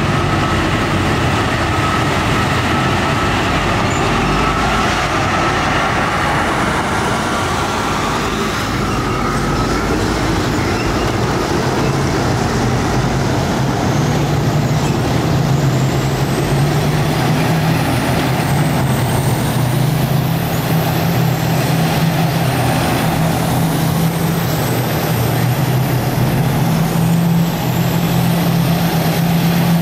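A column of heavy military vehicles, tracked tanks and wheeled armoured carriers and missile launchers, driving past with their big engines running. The sound is a loud, steady drone, with a whine rising in pitch during the first ten seconds and a deeper engine note getting stronger from about halfway through.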